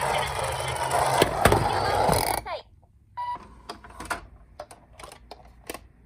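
Plastic toy emergency vehicles rolling and rattling down a slope, with a couple of sharp knocks, until the noise stops abruptly about two and a half seconds in. Light plastic clicks and one short beep follow.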